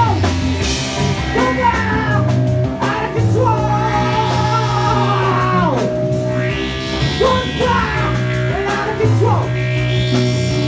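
A live rock band playing: drum kit, guitar and keyboard over sustained low notes, with cymbal washes swelling a few times.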